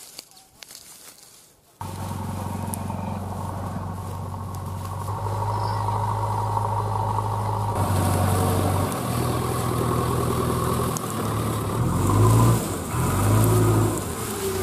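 Diesel engine of a JCB backhoe loader running, cutting in abruptly about two seconds in. It revs up and down a few times near the end.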